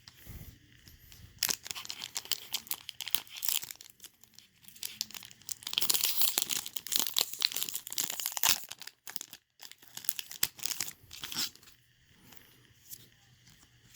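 Foil trading-card booster pack being torn open and crinkled by hand, in several bouts of crackling with short pauses between.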